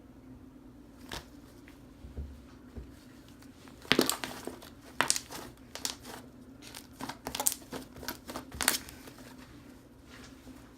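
Fluffy slime made with glue and shaving foam being squished and stretched by hand, giving a series of sharp pops and crackles from about four seconds in until near the end, over a steady low hum.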